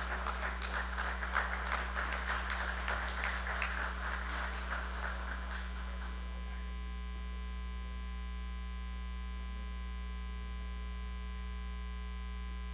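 Audience applauding for about six seconds, the clapping thinning out and dying away, over a steady electrical mains hum that stays on alone afterwards.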